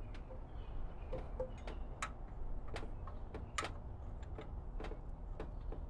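Irregular light clicks and taps of metal parts being handled as a thermostat housing with a heater bypass blockoff is fitted by hand onto an LS engine's water pump, over a steady low rumble.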